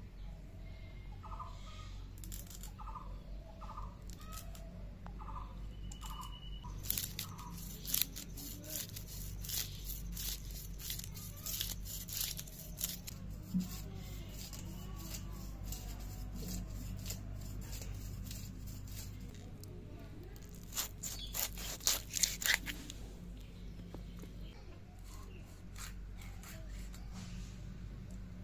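Katla fish being scaled and cut against a boti blade: quick runs of sharp rasping scrapes. The scraping is busiest in the middle and again in a loud spell about three-quarters through. A bird calls repeatedly in the first few seconds.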